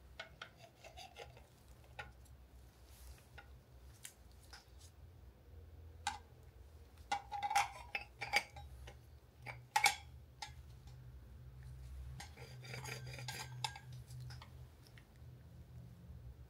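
Parts of a meat mincer's slicer/shredder attachment being handled and fitted together: a stainless-steel grater drum and the white plastic housing knocking and clinking in scattered clicks, loudest about halfway through, followed by a stretch of rubbing.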